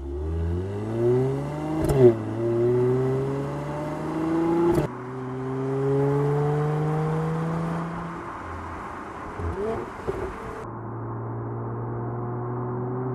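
Mercedes-AMG GLC 43's 3.0-litre twin-turbo V6 accelerating hard through the gears: the engine note climbs, drops with a sharp crack at upshifts about two and five seconds in, then climbs again. After a lift-off with a few pops around ten seconds, it runs at a steady note near the end.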